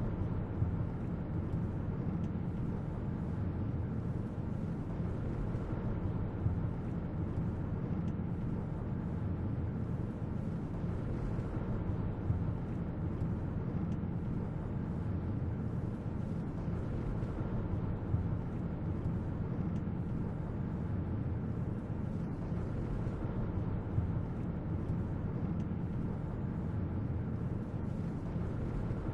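Strong mountain wind buffeting the microphone: a steady low rumble with no let-up.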